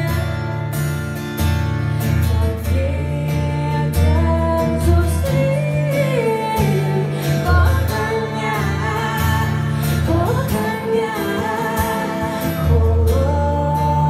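Live acoustic song: acoustic guitar playing under a woman and a man singing into microphones, with the melody rising and falling through the middle.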